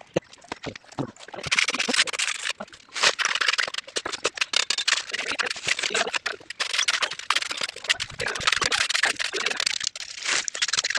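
Irregular scraping and knocking of masons' tools on wet concrete mix as it is poured and worked into wooden plank formwork for a band beam.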